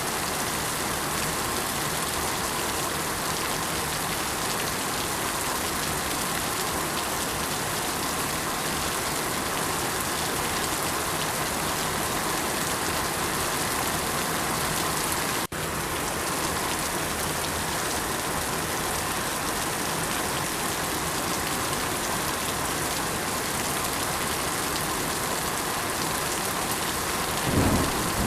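Steady, even rain falling. It cuts out for an instant about halfway through, and a low rumble, like thunder, swells near the end.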